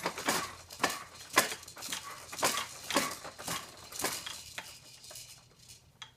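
Baby bouncing in a plastic activity jumper: the seat, its attached toys and the frame rattle and clatter with each bounce, about two a second, dying down after about four and a half seconds.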